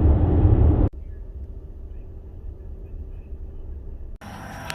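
Low rumble of road noise inside a moving car, cut off abruptly about a second in. After it comes a much quieter steady background with a faint hum, and near the end a sudden switch to louder, fuller background sound.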